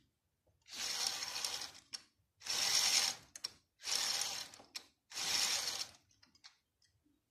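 Plastic LEGO Technic gears and axles whirring as the gear train is cranked by hand in four spurts of about a second each. They spin a LEGO Power Functions M motor that is working as a dynamo.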